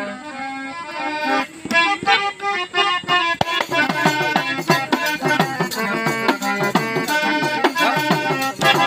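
Harmonium playing a melody introduction, joined about three and a half seconds in by a hand-held frame drum beating a steady rhythm.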